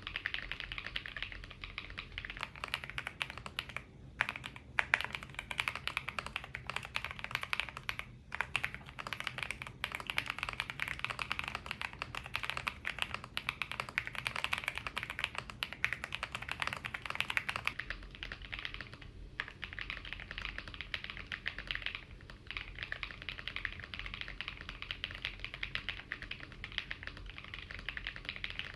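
RK M87 mechanical keyboard with stock switches and a tempest mod being typed on fast and continuously, a dense run of key clacks with brief pauses now and then. About two-thirds of the way through the recording changes from an iPhone 15 microphone to a cheap $20 microphone, which alters the background tone.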